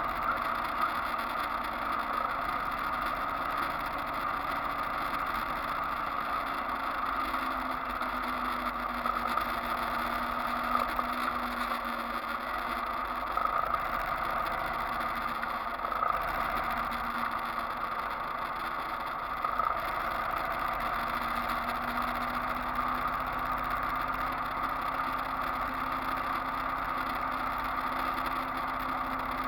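Engine and road noise of a vehicle cruising at a steady speed, a continuous drone whose engine note drifts slightly up and down.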